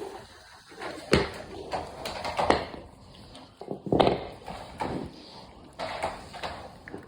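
Seven-week-old pit bull puppy gnawing a raw knuckle bone: irregular crunches, scrapes and knocks of teeth and bone, with a few sharper ones about a second in, at two and a half seconds and at four seconds.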